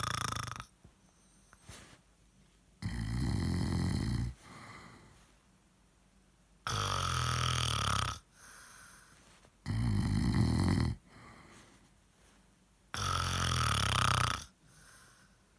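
A drunk man snoring heavily: four long, loud snores about three seconds apart, each lasting over a second, with quieter breathing out between them.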